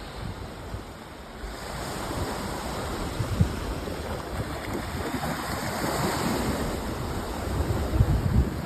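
Wind buffeting the microphone, with low gusts about 3.5 and 8 seconds in, over a steady rushing of surf.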